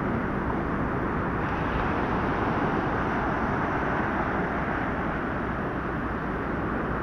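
Heavy surf washing and breaking close by, a steady rushing noise.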